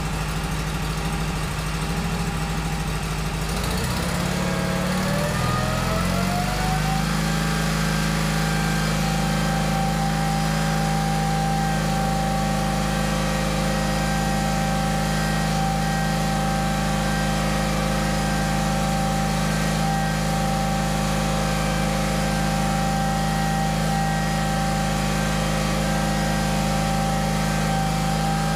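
John Deere 300-series garden tractor engine running, sped up from a low speed about four seconds in to a steady higher speed by about seven seconds.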